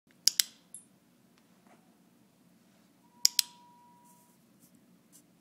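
Two sharp double clicks, one near the start and one about three seconds later, each a quick click-clack pair. A faint steady tone follows the second pair for about a second.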